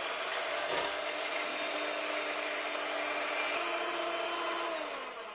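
Electric hand mixer running steadily, its beaters whisking egg whites in a ceramic bowl as they froth up. The motor's hum fades away near the end.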